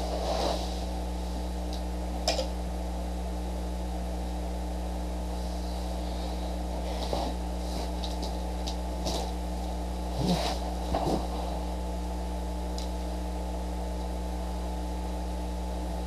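Steady electrical mains hum, with a few soft clicks and rustles scattered over it, clustering around the middle.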